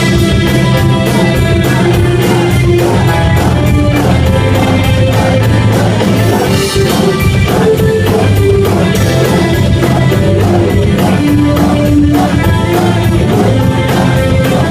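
Loud rock music: a full band with guitar and a steady drum beat.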